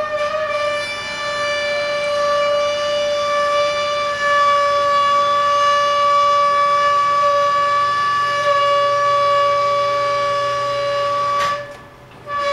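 Steel wheels of a caboose squealing as it is pulled slowly along rails onto a trailer: one long, high, steady squeal at a single pitch that cuts off suddenly near the end.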